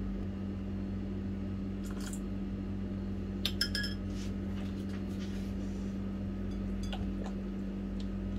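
A black spatula stirring a thick yogurt marinade in a glass mixing bowl. It scrapes and knocks against the glass in a few scattered clinks, the loudest a ringing glass chink about three and a half seconds in, over a steady low hum.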